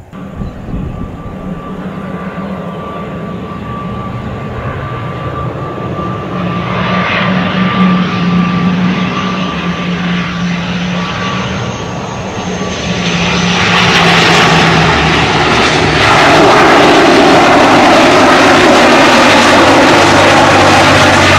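ATR 72-600 twin-turboprop airliner landing: a steady engine and propeller drone with a thin high whine, growing louder as it comes in. From about two-thirds of the way in it becomes much louder and rushing as the aircraft rolls along the runway with its propellers turning.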